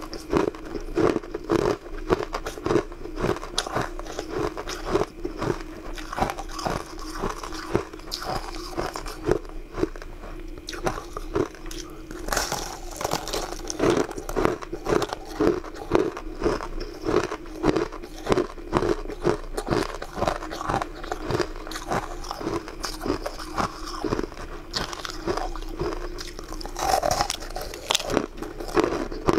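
Close-miked biting and crunching of a hard, crystalline pink sweet: a dense run of sharp crunches with chewing in between.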